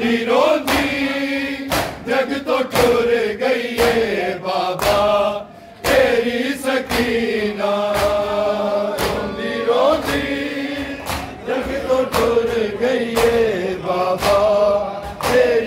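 Men's voices chanting a noha together, with the sharp slaps of hands beating on chests (matam) in a steady rhythm throughout, pausing briefly about five and a half seconds in.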